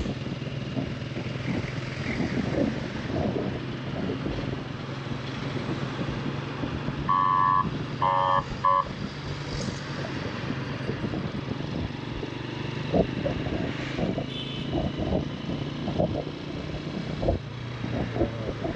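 Motorcycle riding along a mountain road: the engine runs steadily under road and wind noise. A horn sounds three short blasts about seven to nine seconds in.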